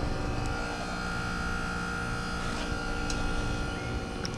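Residential heat pump outdoor unit running just after start-up: a steady electrical hum with several held tones from the compressor and condenser fan motor. The fan is turning slowly, which the owner puts down to a probably almost dead run capacitor.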